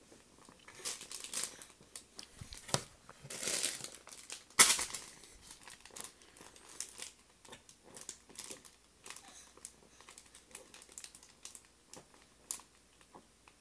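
A crinkly fabric play mat rustling and crinkling under a baby's hands in irregular bursts. The loudest crinkle comes about four and a half seconds in.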